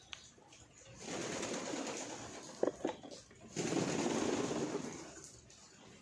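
A flock of domestic pigeons cooing. There are two longer, louder stretches of sound in the middle, and a couple of sharp clicks about two and a half seconds in.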